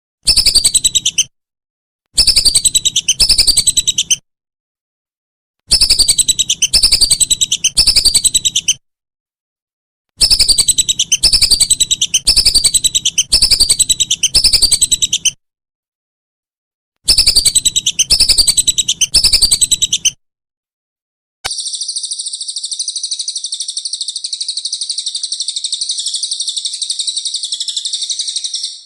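Recorded bird song used as masteran: five bursts of rapid, repeated high notes, each sliding downward, separated by short pauses. About two-thirds of the way through it gives way to a long, continuous high-pitched trill.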